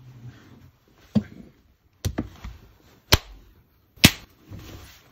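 Hands smacking at a mosquito: four sharp slaps about a second apart, the last the loudest, with faint rustling in between.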